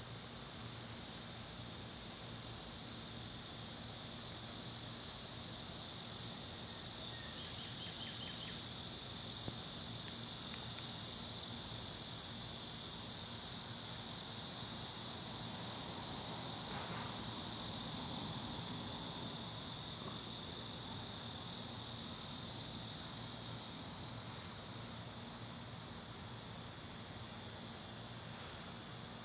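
Insect chorus: a steady, high-pitched buzzing that swells toward the middle and eases off near the end, with a faint low hum underneath.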